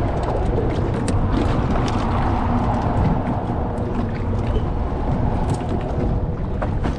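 A boat motor running steadily with wind buffeting the microphone, plus a few light ticks or knocks against the hull.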